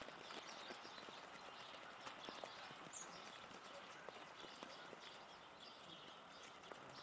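Faint rain ambience of dripping and pattering, with scattered light irregular taps from a Steller's jay pecking at food in a wire basket feeder. Two brief, faint, high chirps come about 3 and 5½ seconds in.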